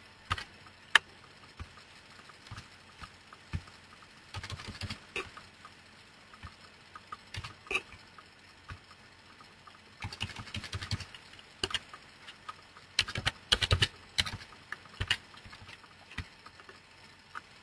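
Computer keyboard typing in short bursts of rapid key clicks, with isolated single clicks in between.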